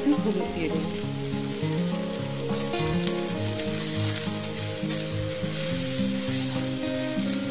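Bitter gourd slices and onion sizzling as they fry in oil in a kadai. From about two and a half seconds in, a slotted metal spatula stirs and scrapes through the vegetables against the pan.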